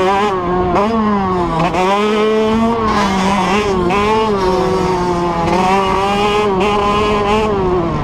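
85cc two-stroke motocross bike engine under hard throttle, its revs rising and falling with several brief dips as the rider works the throttle and gears.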